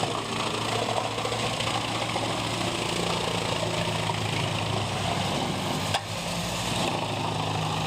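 A wood chipper's engine running steadily, with a sharp click about six seconds in.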